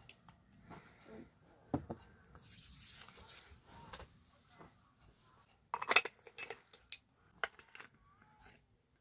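Plastic skincare bottles handled close to the microphone: scattered clicks and knocks of caps and bottle bodies, with a cluster of them about six seconds in, and a short rubbing hiss of lotion being rubbed into skin about three seconds in.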